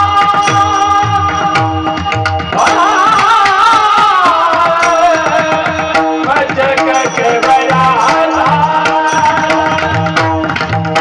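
Marathi devotional kirtan singing: a male voice sings a wavering, ornamented melody in two phrases over a held steady drone, with an even hand-drum rhythm and sharp metallic clicks keeping time.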